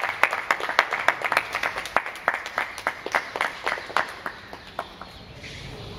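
Applause: hands clapping in quick, uneven claps that thin out and stop about five seconds in.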